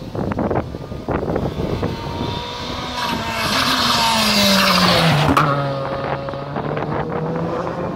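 Rally car passing at speed: its engine note builds to a peak as it goes by about four to five seconds in, then drops in pitch as it pulls away. There is a sharp crack just as it passes.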